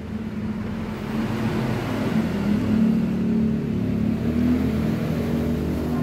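An engine running steadily, its hum wavering a little in pitch.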